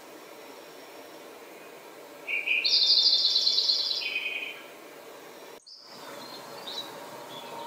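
Lincoln's sparrow singing one song of about two seconds over steady background hiss. It opens low, rises abruptly into a fast, higher trill, then drops back low.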